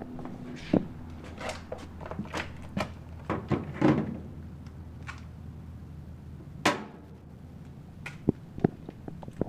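Irregular knocks, clicks and clatter of objects being handled and set down, with one louder thump about two-thirds of the way through, over a steady low hum.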